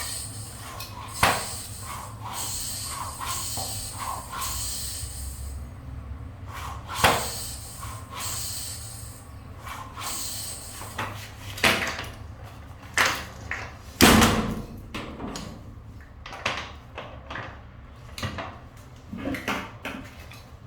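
Scattered knocks and clicks of hands handling a bicycle and repair tools, with a heavier thump about fourteen seconds in.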